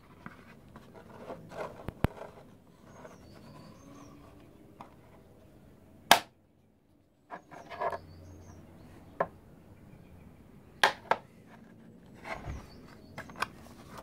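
Snap-fit catches on a 3D-printed plastic case clicking as the lid is pressed and worked, with plastic rubbing and knocking against a wooden bench between them. Several sharp snaps, the loudest about six seconds in and another right at the end.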